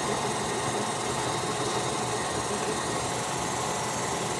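KitchenAid tilt-head stand mixer running steadily on low speed, its motor humming as it beats butter and icing sugar with a little flour in the steel bowl.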